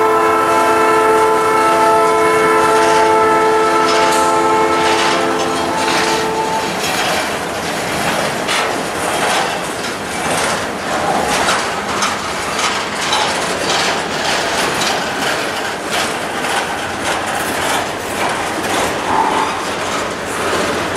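A freight train's diesel locomotive horn holds one long chord of several notes, which cuts off about five to six seconds in. After it, the freight cars roll past with a steady rhythmic clicking of steel wheels over the rail joints.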